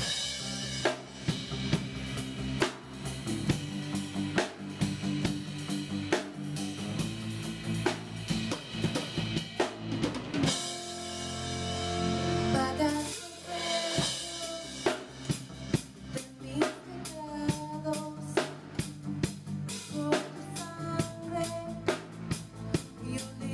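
A Christian worship song played live by a band: a steady drum beat under keyboard chords and electric bass. About ten seconds in, the drums drop out for a few seconds under a held chord, then the beat returns and a woman's singing comes in.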